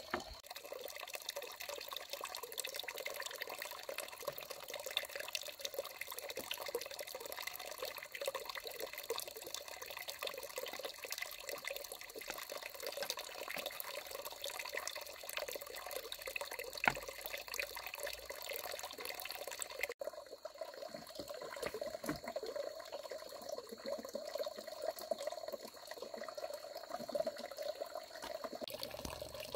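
Water running and trickling steadily, with a few small drips and splashes, breaking off for a moment about two-thirds of the way through before continuing.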